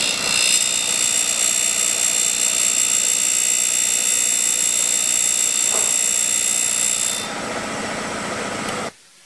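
Darex E90 end mill sharpener running, its grinding wheel sharpening the secondary clearance angle on an end mill's flutes, with a steady high-pitched whine. About seven seconds in the whine drops away, leaving a quieter hum that cuts off abruptly near the end.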